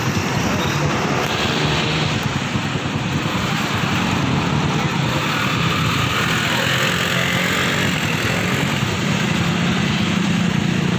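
Steady street traffic with motorcycle engines running, a continuous low engine hum under general road noise.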